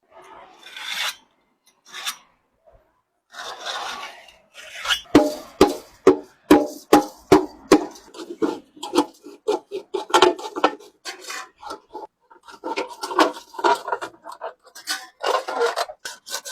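Repeated scraping and rubbing strokes of a hand tool on a large metal water kettle. The strokes are sparse at first, then come one or two a second, and get faster near the end.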